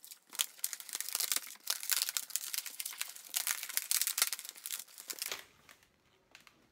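Thin 160 latex modelling balloons being twisted and pressed together in the hands: a quick run of short scratchy rubs of latex on latex, which stops about five seconds in.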